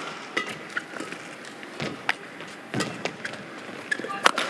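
Badminton rally: sharp racket hits on a shuttlecock, about one a second, with the players' footwork on the court between them.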